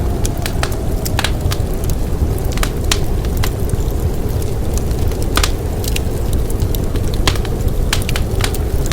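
Wood fire crackling, with frequent sharp pops at irregular intervals over a steady low rumble of blizzard wind.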